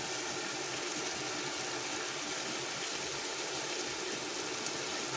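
Chicken and masala sizzling steadily in a pot on the stove, with fresh coriander and mint leaves just added on top: an even hiss with no breaks.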